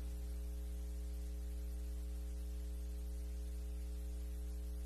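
Steady electrical mains hum: a low, constant buzz with a few faint higher overtones.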